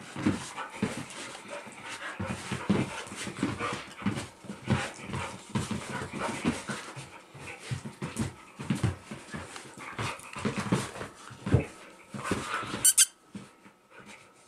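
Two Dobermans play-fighting: a rapid, uneven run of panting and scuffling noises, ending with one short sharp sound, after which it stops about a second before the end.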